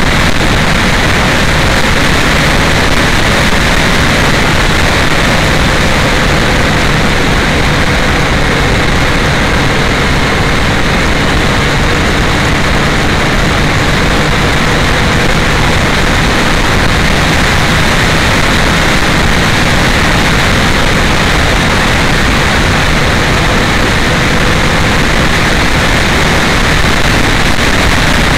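Heavy wind noise on an uncovered camera microphone at the front of a moving motorcycle, over the steady drone of a Yamaha FZ1's inline-four engine at a constant speed.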